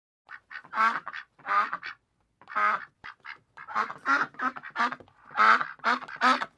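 Duck quacking: a run of about fifteen short, raspy quacks in irregular groups, starting a moment in.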